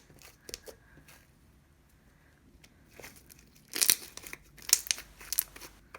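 Butter slime being handled, crackling and popping as air bubbles in it burst: a few faint clicks, a quiet stretch, then a run of louder, sharp crackles in the second half.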